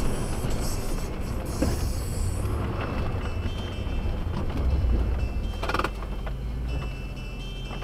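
Heavily loaded plow truck's engine running under load as the truck drives through packed snow drifts, with a rattle from the cab and body. There is a short clatter about six seconds in.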